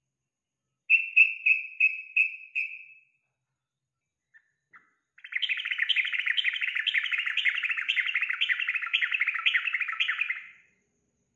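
Yellow-vented bulbul (trucukan) singing: a run of about seven quick clear notes that fade away, two faint chips, then a long bubbling chatter of about five seconds.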